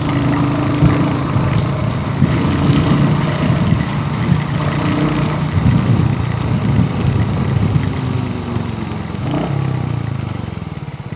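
Royal Enfield Hunter 350's single-cylinder engine running while riding, under a steady rushing noise. Near the end it eases off and settles into slower, even beats.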